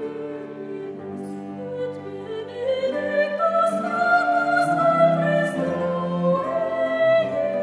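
Slow classical background music of long held notes, growing fuller and louder about three seconds in.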